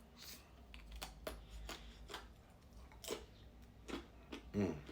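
Someone biting into and chewing a chocolate-coated almond toffee ice cream bar: a string of sharp little crunches and crackles from the chocolate shell and nuts. A short hummed voice sound near the end.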